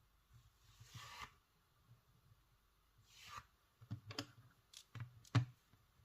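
Hands and sculpting tools working plasticine on a work surface: two soft scraping swishes, then a quick run of sharp clicks and taps, the last one the loudest.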